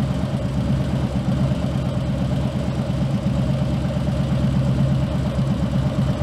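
Harley-Davidson Road King's air-cooled V-twin idling steadily with even, regular pulses, a tuning booster wired into it.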